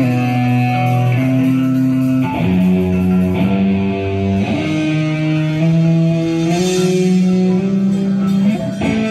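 A live band's electric guitars and bass playing loud, sustained chords that change every second or so.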